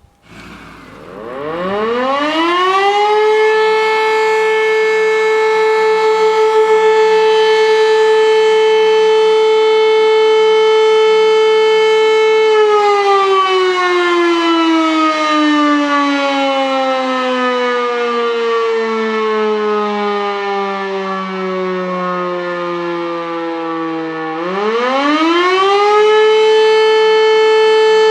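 E57 electromechanical motor siren winding up from rest to a steady tone within about two seconds, holding it for about ten seconds, then gliding steadily down in pitch as the motor is cut and the rotor runs down. Near the end it winds back up to the same steady tone. This is the opening of the 'Feueralarm' signal that calls out the volunteer fire brigade, sounded here as a monthly test.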